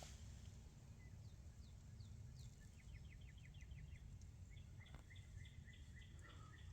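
Faint songbird calls over low background rumble: a quick run of about eight short falling notes, then a steady series of repeated chirps.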